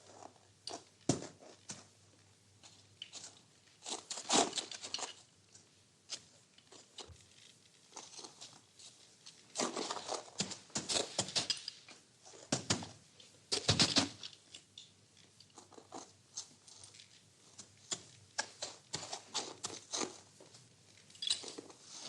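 Hay rustling and crackling in irregular bursts, as a horse feeds in its stall.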